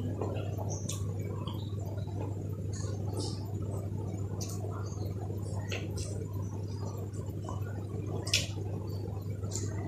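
Close-miked eating: wet chewing and lip-smacking, heard as scattered short smacks and clicks, one sharper about eight seconds in, over a steady low hum.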